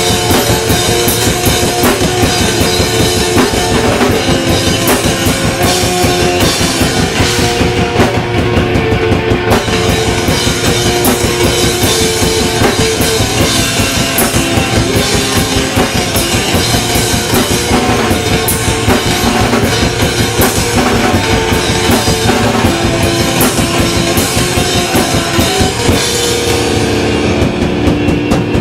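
Live hardcore band playing: a fast, loud drum kit with cymbals under distorted electric guitars and bass. Near the end the drums drop back and the guitars hold ringing notes.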